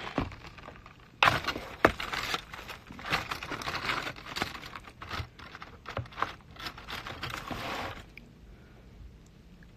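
Aluminium foil wrapping crinkling and rustling as it is handled, full of sharp crackles, from about a second in until about eight seconds in.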